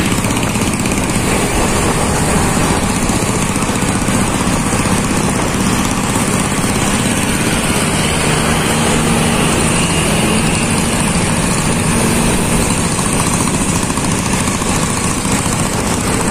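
Motorcycle engines running steadily on the move, heard from a riding motorbike with heavy wind noise on the microphone.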